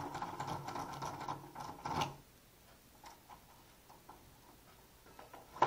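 Sparrows lock pick raking the pin tumblers of a door lock: rapid metallic clicking and rattling for about two seconds, ending in a sharper click. Then a few scattered light ticks, and one sharp click at the end.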